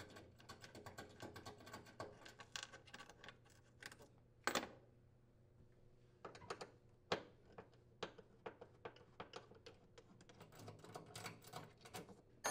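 Faint, rapid, irregular clicking and ticking of a screwdriver backing out a microwave mounting bolt through a wooden cabinet floor, with a few louder clicks.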